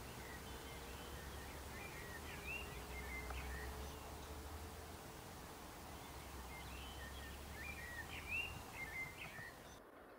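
Faint birdsong: short chirping and warbling calls, over a low steady rumble that drops away near the end.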